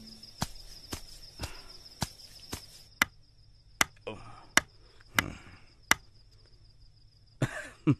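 Hammer-and-chisel strikes carving a statue: about ten sharp knocks, roughly two a second at first, then more spaced out. A steady chirr of crickets runs behind.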